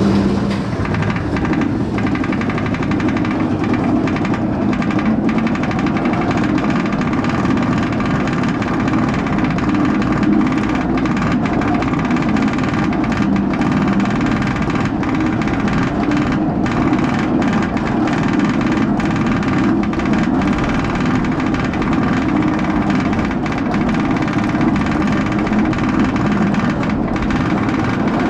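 Inverted roller coaster train climbing its chain lift hill: the lift chain runs with a steady mechanical clatter and a constant drone.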